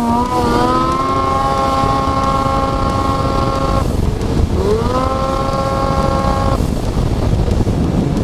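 Snowmobile engine revving up and holding a steady high pitch, dropping off the throttle a little before four seconds in, then revving up again and easing off near seven seconds, under a constant rushing noise.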